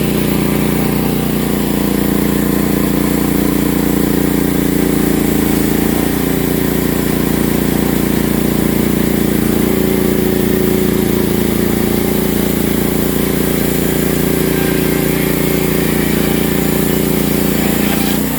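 Portable sawmill's engine running steadily under load while its blade cuts slowly through a sweetgum log. The pitch shifts slightly about six seconds in, and the sound drops off at the very end.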